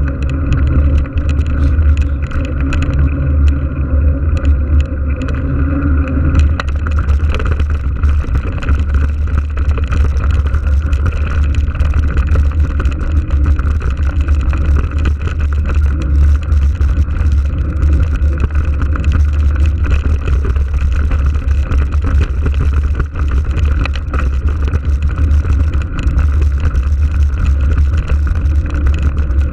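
Wind buffeting the microphone of a mountain bike's action camera while riding, a loud, steady low rumble, with tyre noise underneath. From about six seconds in, a rougher, crackling tyre noise joins in as the bike leaves tarmac for a dirt track.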